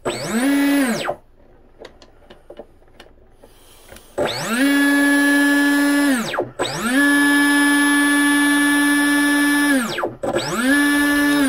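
RC boat's electric motor spinning its freshly greased flex-cable drive line, run up in four throttle bursts: a whine that rises, holds and falls. The first ends about a second in; after a quiet gap with a few light clicks come three more, the longest held steady for about three seconds. It runs nice and smooth, a sign that the cable and coupler turn freely in the stuffing tube.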